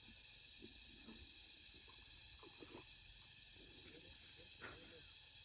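Insects calling in a steady high-pitched drone, with faint scattered rustles and knocks.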